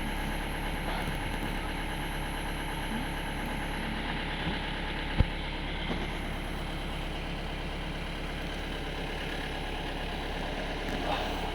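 Jeep engine idling steadily, with a single sharp click about five seconds in.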